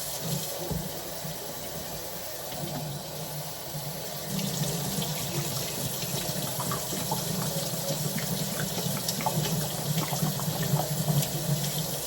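Kitchen tap running into a sink while an emptied food container is rinsed out, the flow getting stronger about four seconds in, with small clicks and knocks of the container.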